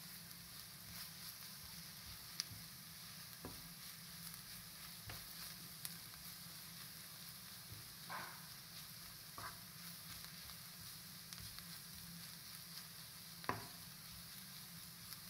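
Onion and spice masala frying in oil in a pan with a faint steady sizzle. It is stirred with a spatula that scrapes and knocks against the pan a few times, the sharpest knock about 13 seconds in. The masala is being cooked until its raw smell is gone.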